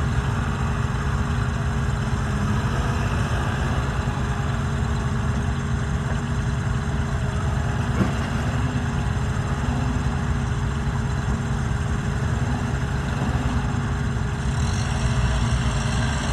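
Bobcat E88 mini excavator's diesel engine idling steadily, with one brief click about halfway through.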